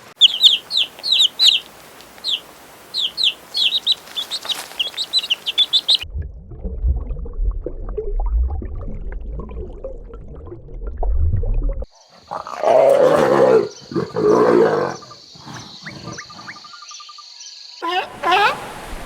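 A run of different animal-sound clips. First comes bird chirping in quick, high repeated notes. About six seconds in it cuts abruptly to a low rumbling, then to loud calls over a steady high whine, and the bird chirping returns near the end.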